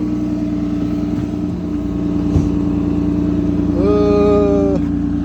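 Car engine idling steadily, with a single sharp knock about two seconds in and a brief pitched tone lasting about a second near the end.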